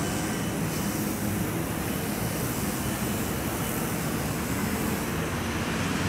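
Steady, even low rumble of outdoor background noise with no distinct events.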